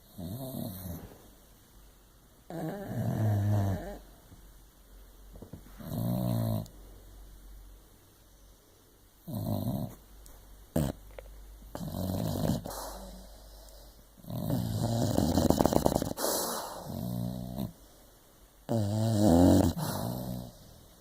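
A sleeping dog snoring: a run of about seven short, dainty snores, one every two to three seconds, with a longer snore past the middle. A sharp click comes about halfway through.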